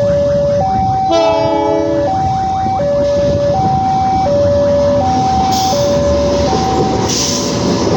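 CC 206 diesel locomotive's multi-chime air horn sounding a short chord about a second in, over a two-tone warning alarm that alternates high and low about every 0.7 s. Brief hissing bursts sound near the end.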